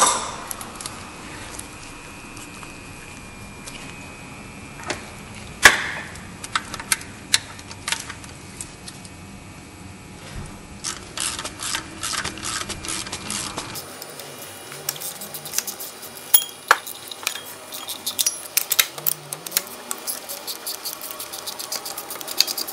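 Ratchet wrench clicking in short runs and steel tools clinking against the engine as the water pump bolts are undone. There is one sharp knock about six seconds in, and the clicks come thicker in the second half.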